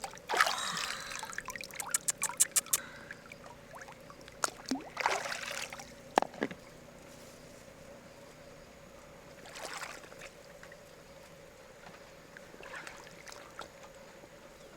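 Water splashing and trickling in short bursts, with a quick run of sharp clicks about two seconds in.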